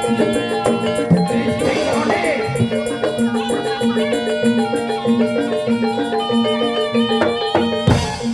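Javanese gamelan music for a Barongan dance. Metallophone notes repeat in a steady pattern over drums and rattling percussion, with one sharp loud hit near the end.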